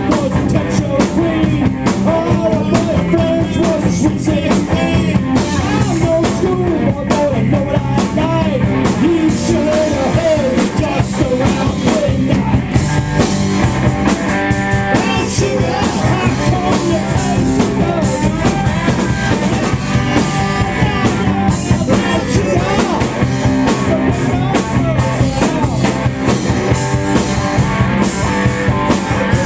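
Live rock band playing loud, with electric guitars over a driving drum kit.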